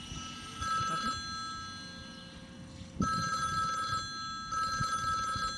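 Electronic warbling ring, like a telephone, sounding in three bursts: a short one about half a second in and two longer ones in the second half.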